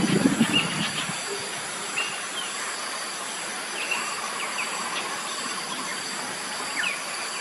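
Steady high-pitched drone of forest insects, with scattered short bird chirps over it. Near the start there is a brief cluster of knocking and scraping from hand work.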